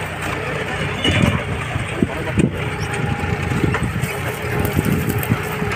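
42 hp tractor's diesel engine running steadily under load while pulling a plough through dry soil, with irregular crunching and knocking from the soil and clods being turned.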